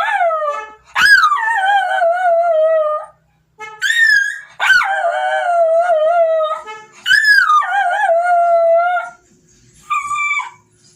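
A dog howling: a run of long howls, each starting with a sharp rise in pitch, then sliding down and holding a lower wavering note for one to two seconds. A short, steady, higher tone sounds near the end.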